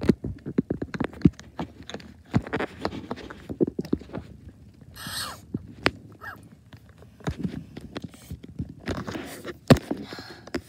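Irregular hard plastic clicks and knocks as a purple plastic toy juice cup is jiggled against a baby doll's plastic mouth, with a short hissing rush about halfway.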